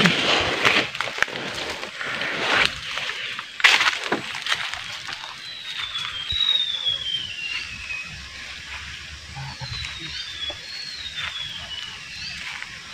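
Dry leaf litter and brush crackling underfoot during the first few seconds. Then a bird calls with long high whistles, each sliding down in pitch, repeated several times.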